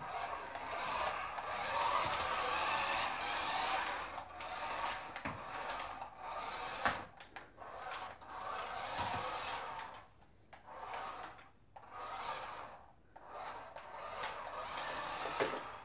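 Toy remote-control car's small electric motor and gears whirring as it drives, in spurts that start and stop with short gaps as the throttle is worked, with a few light clicks.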